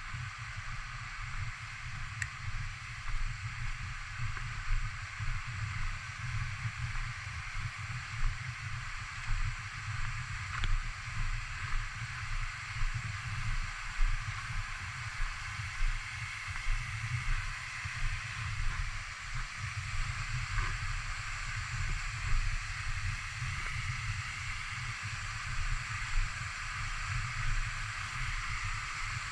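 Waterfall: the steady rush of falling water, with wind buffeting the microphone in uneven low gusts.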